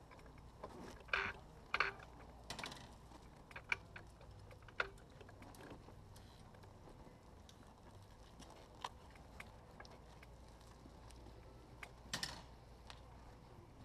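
Quiet outdoor ambience with a low steady hum and scattered small clicks and taps, a few sharper ones about a second in and a cluster about twelve seconds in.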